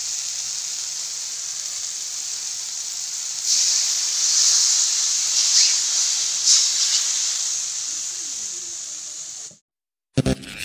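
Chopped tomato and ginger sizzling in hot oil in a wok, the sizzle growing louder about a third of the way in. Coconut milk poured over them hits the hot pan, and the sizzle then dies away. A brief silence follows, then intro music starts near the end.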